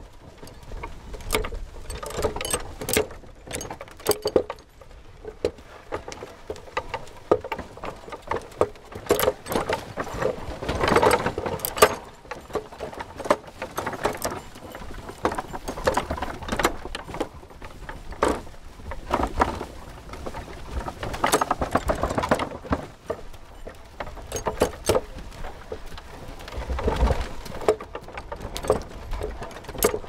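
Bullock cart on the move: the bullocks' hoof steps and the cart's wheels and frame knocking and rattling, heard as a continuous, irregular clatter of clicks and knocks.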